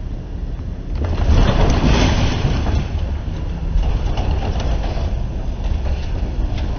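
Airbus A380 landing heard from inside the cabin through a phone microphone: loud noise swells sharply about a second in and stays loud, with faint rattles and clicks over it.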